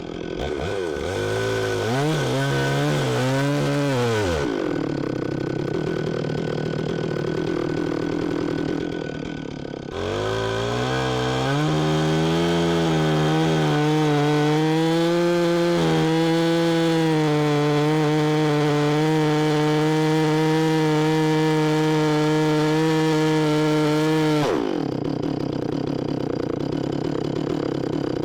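Stihl MS 460 two-stroke chainsaw with a 25-inch bar, revved up and back down briefly, then run up and held at high revs for about fifteen seconds, as in a cut into the oak trunk. It drops back sharply near the end.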